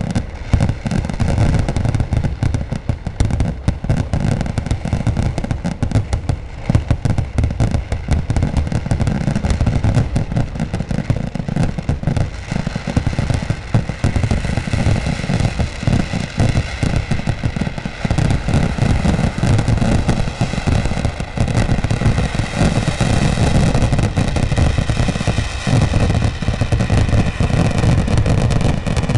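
Kerala temple-festival fireworks: a dense, unbroken barrage of firecracker bangs, so rapid that they merge into a continuous rumbling crackle.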